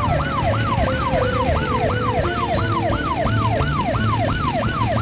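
Siren sound effect in a cartoon, a fast repeating cycle in which each wail drops quickly in pitch, about three a second, over a low pulsing rumble.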